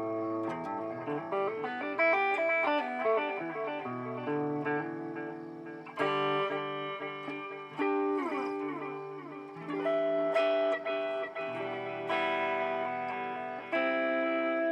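Electric guitar played through a BOSS DD-8 digital delay pedal in Warp mode, the notes and chords ringing on under layered, swelling echo repeats. About eight seconds in there is a falling pitch sweep.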